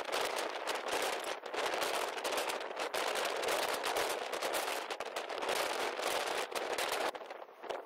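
Strong wind buffeting the microphone: a dense crackling rush full of rapid pops, easing near the end.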